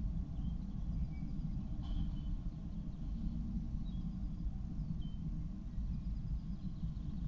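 Steady low rumbling background noise in a nest box, with a few faint, short bird chirps from outside.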